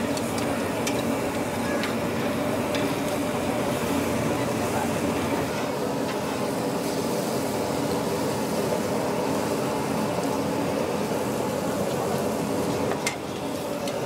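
Goat offal sizzling on a hot charcoal grill over a steady background din. Metal tongs click lightly on the grate about once a second in the first few seconds, and there is a sharper click near the end.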